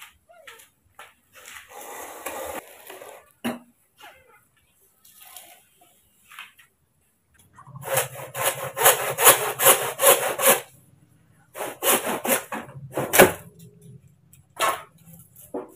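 Handsaw cutting through a green bamboo pole, with quick back-and-forth rasping strokes, about three or four a second, in two runs separated by a short pause in the second half.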